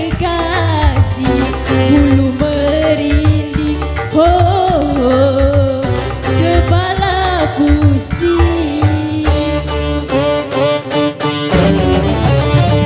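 Dangdut koplo band music with no lyrics sung: a bending melody line over a steady drum beat and bass. About two-thirds of the way through, the melody drops away to sharp drum hits, then the bass comes in heavier.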